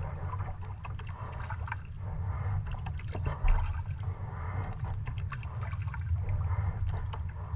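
Water splashing and trickling over a steady low rumble, with a brief louder splash about halfway through.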